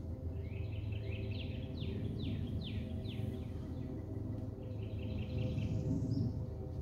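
A songbird singing a series of clear down-slurred whistles, about three a second, followed a little later by a short rapid trill. A steady low hum runs underneath.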